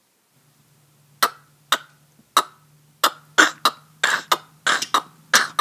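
Vocal sound effect made with the mouth: sharp tongue clicks over a low hummed tone, beatbox-style, imitating the hooves of an approaching goat. The clicks begin about a second in and come faster, around a dozen in all.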